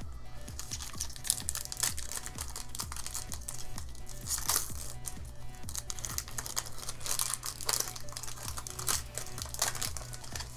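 Foil wrapper of a Pokémon card booster pack crinkling and tearing as it is handled and opened, with irregular rustles throughout. Background music with a steady low beat plays underneath.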